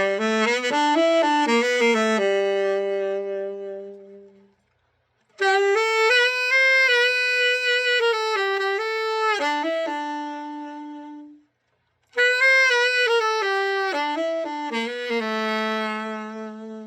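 Selmer Reference 54 tenor saxophone played solo, a play test of the instrument after its setup. It plays three short unaccompanied phrases with brief pauses between them, each ending on a held low note.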